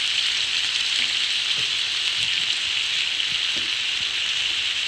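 Chicken, carrots and potatoes sizzling steadily in a hot frying pan.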